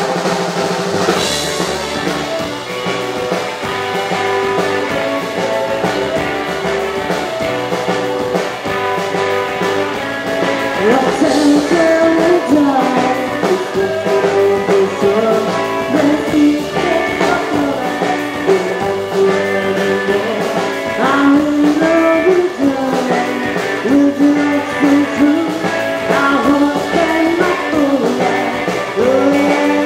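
Live rockabilly band starting a song at once, with electric guitar and drums, and a woman singing from about ten seconds in.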